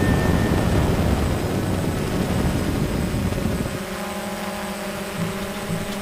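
Multirotor drone's motors and propellers running, heard from its onboard camera. A rushing noise for the first few seconds gives way to a steady whine of several even tones a little before the fourth second.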